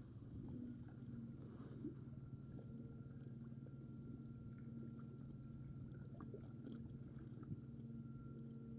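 Faint, steady low motor hum with a thin higher tone held above it, and a few soft ticks.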